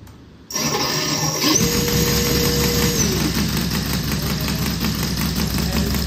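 Saito 90R3 three-cylinder four-stroke radial gas engine being started by its electric auto-starter. About half a second in, the starter spins the engine with a rising whine that holds steady, and the engine fires and catches. The starter whine drops away about three seconds in, and the engine then runs on steadily.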